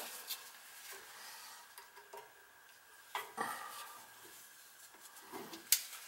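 Gloved hands handling a multimeter and its test leads against the furnace's sheet-metal cabinet: scattered light clicks and rustles, with a sharp click near the end.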